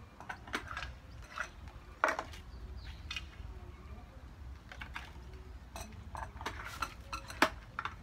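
Light clicks and clatter of plastic and metal parts being handled and fitted together while assembling a chipper shredder's wheel axle bar and wheels. The sharpest knocks come about two seconds in and again near the end.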